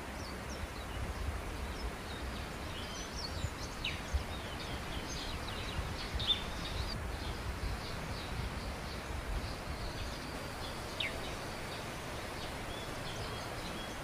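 Forest ambience: small birds chirping now and then with short, high calls, two of them longer falling calls, over a steady hiss and a low rumble.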